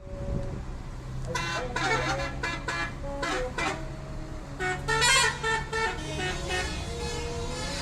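Telolet musical horns on coach buses playing quick runs of stepped notes, starting about a second and a half in, over the steady hum of an idling engine. The horn notes are loudest about five seconds in.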